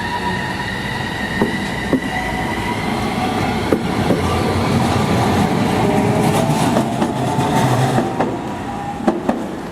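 Tokyu Setagaya Line train passing over the level crossing, its wheels clacking over the rail joints. A thin high squeal sounds at the start, and a motor whine rises in pitch as the train grows louder towards the middle, then eases off.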